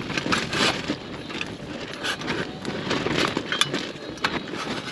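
Irregular clicks, rattles and crackling as a small portable gas stove and its cartridge are handled.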